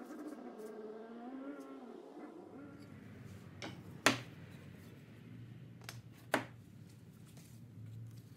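Two sharp knocks about two seconds apart, with a few lighter clicks: a walnut-and-maple wooden desk-organizer base set down on a hardboard table, then a sheet-metal display panel set into its slot. A low steady hum starts about a third of the way in, and faint music fades out before it.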